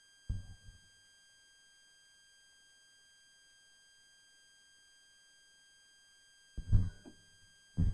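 A faint, steady high-pitched electronic tone with even overtones, and a few short, dull low thumps: one shortly after the start and two near the end.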